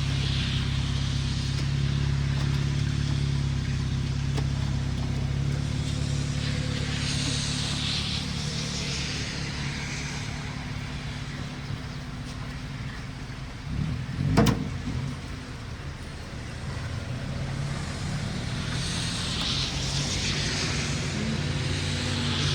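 Road traffic: vehicles pass by with tyre hiss that swells and fades about three times, over a steady low engine hum. There is one short, loud noise about two-thirds of the way through.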